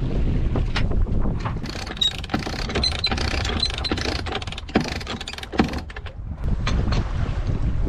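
Sailboat winch cranked with a winch handle: a run of irregular ratcheting clicks and knocks, over steady wind noise on the microphone.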